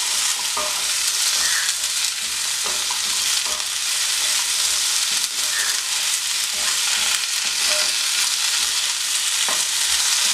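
Taro slices frying with onions and spice masala in oil in a non-stick pan, sizzling steadily as a wooden spatula stirs them, with a few light knocks of the spatula against the pan.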